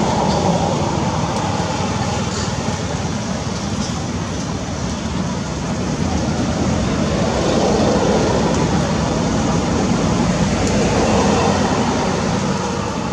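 Steady, loud rumbling background noise with no distinct single event, swelling slightly past the middle.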